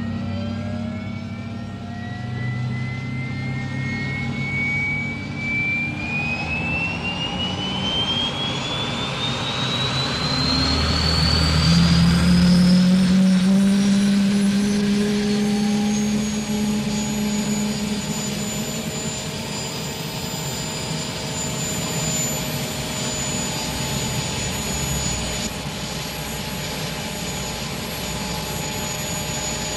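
UH-1 'Huey'-type helicopter's turbine engine spooling up on the ground: a whine climbs steadily in pitch for the first ten seconds or so, then holds high and steady as the two-blade rotor comes up to speed with a low hum beneath. It is loudest just as the climb ends, about a third of the way in.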